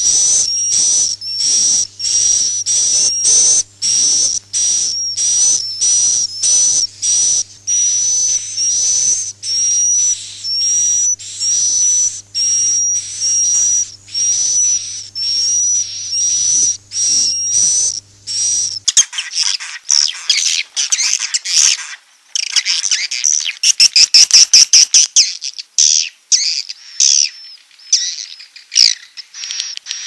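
Edible-nest swiftlet roosting calls ('suara inap'), the lure sound used to draw swiftlets into a nest house: short buzzy chirps with a high whistle, repeated about two a second over a faint low hum. About 19 s in it changes abruptly to a denser, louder twittering of many overlapping calls.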